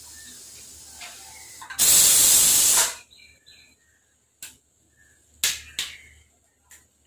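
Pressure cooker letting off a loud hiss of steam for about a second, after a softer steady hiss. Then a few short knocks of a bowl and pots being handled on the stovetop.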